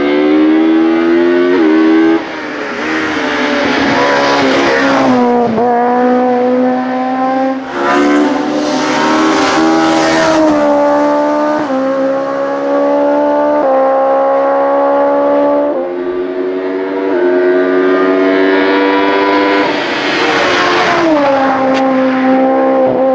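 Opel Kadett C race car's engine, in the up-to-2000 cc hillclimb class, at full throttle and revving hard up the hill. Its pitch climbs and then drops sharply at each of several gear changes.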